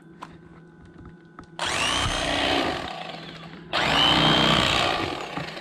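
Electric fillet knife running, its reciprocating blades buzzing as they cut the rib cage out of a Spanish mackerel fillet. It switches on about a second and a half in, and a second, louder run starts a little before four seconds.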